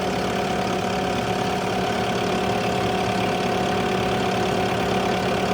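Bobcat T770 skid steer's diesel engine idling steadily, with an even hum.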